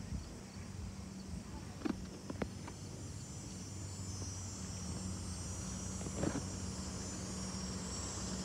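Pickup truck engine running with a steady low hum that grows slowly louder toward the end as the truck approaches, over a steady high insect buzz. A few light clicks stand out about two seconds in and again near six seconds.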